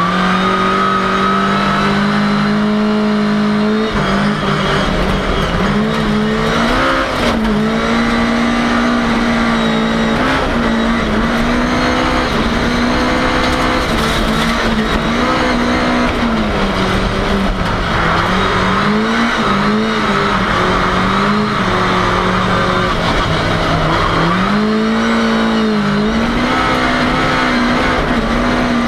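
Ford Cortina race car engine heard from inside the car, running hard at high revs. The pitch repeatedly dips and climbs back as the revs fall and rise.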